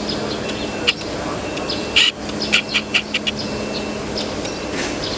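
Fibre laser cutting machine at work on 2 mm brass: a steady hum and hiss, broken by a quick cluster of short, sharp pops and snaps, most of them between about two and three and a half seconds in.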